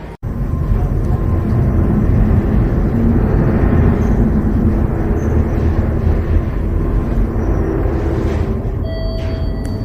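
Lift car running with a loud, steady rumble. About nine seconds in, a steady electronic beep sounds over it.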